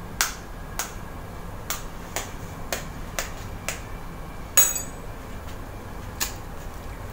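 Light, repeated taps of a metal fork against an eggshell to crack it, about ten spread out. One louder tap about four and a half seconds in has a brief ringing.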